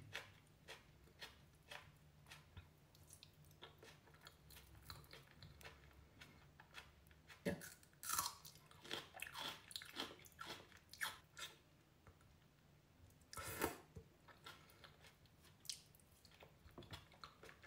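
Close-up mouth sounds of a person eating pickled herring with onion: soft chewing and wet mouth clicks, with louder clusters of biting and crunching about eight seconds in and again a little after thirteen seconds.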